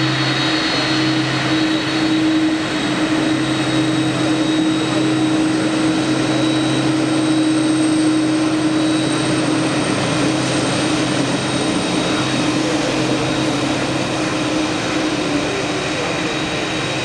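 Boeing 767 freighter's twin jet engines running at taxi idle: a steady whine over a low rushing drone. It eases off slightly near the end as the aircraft turns away.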